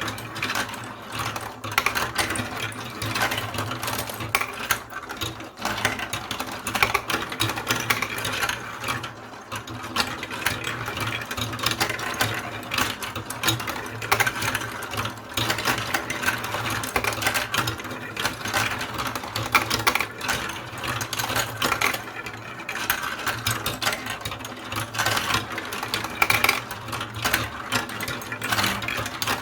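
Marbles rolling and clattering through a block-built marble run: a continuous dense rattle of small clicks, with a steady low hum underneath.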